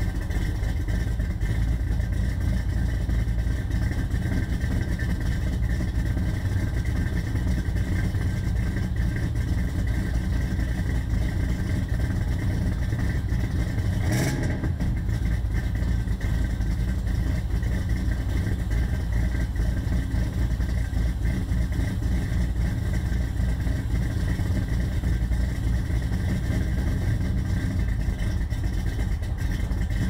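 Small-block Chevy 350 V8 idling steadily through Flowmaster 40 Series mufflers on a true dual exhaust with an X-pipe, heard from behind the tailpipes. The idle sits around 800–900 rpm while a freshly installed Holley Sniper EFI, still learning its tune and running a little rich, settles it. A brief click about fourteen seconds in.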